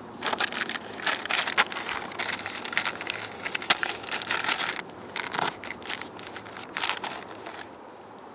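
A sheet of paper crinkling and rustling as it is folded and pushed into a trouser pocket, in many quick crackles that thin out after about five seconds.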